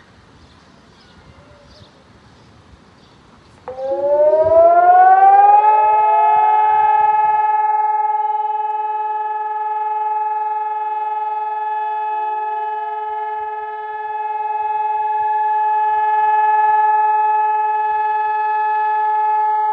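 A public siren winds up about four seconds in, its pitch rising for about two seconds, then holds one long steady tone: the memorial siren sounded for Holocaust Remembrance Day. A second, fainter siren can be heard winding up a few seconds later beneath it.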